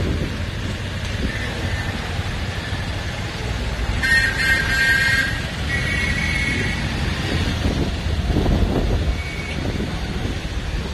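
Road traffic rumbling, with a vehicle horn sounding for about a second about four seconds in and again briefly around six seconds.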